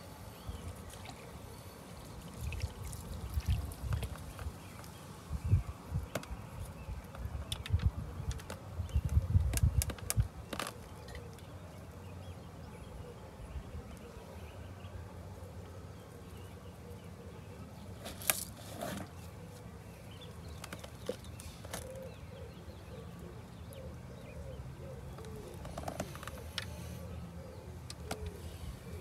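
Waterside ambience. Low gusts of wind buffet the microphone for the first ten seconds or so, then ease into a steadier background with birds calling faintly. There is one brief rustle about eighteen seconds in.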